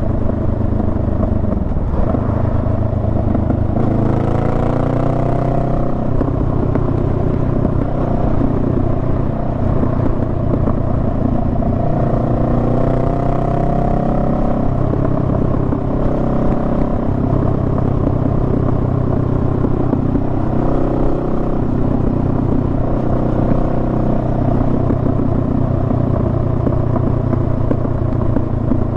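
Honda Rebel 500's parallel-twin engine running under way, with its pitch rising and falling a few times as the throttle changes.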